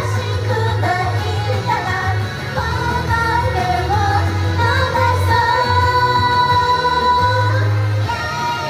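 Pop song with female singing over a steady, pulsing bass; one sung note is held long, about five to eight seconds in.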